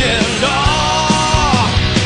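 Rock song playing, with drums and a male voice singing one long held note that bends down near the end.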